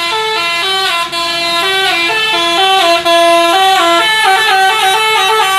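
Indonesian bus 'telolet' musical horn of the Basuri type playing a loud melody, its notes stepping up and down a few times a second.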